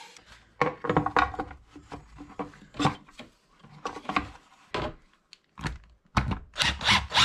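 Handling clatter and thunks as a plastic air intake chamber is fitted onto a scooter engine, then a cordless driver running a screw in near the end.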